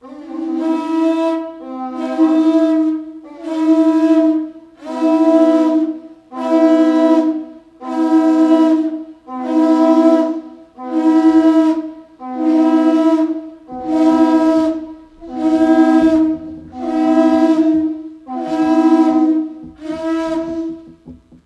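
A horn blown in about fourteen long, evenly spaced blasts, roughly one every second and a half, each sounding two low notes together.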